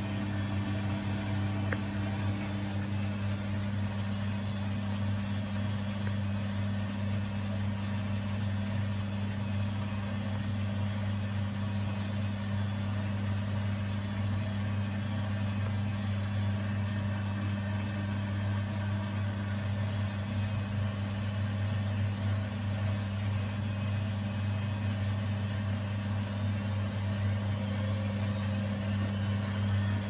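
Arçelik 7103 Y front-loading washing machine running its wash, a steady low motor hum. Near the end a rising whine comes in as the drum motor speeds up.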